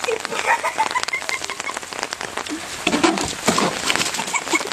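Heavy rain falling, with many sharp drop hits, and a few short pitched sounds near the start and again about three seconds in.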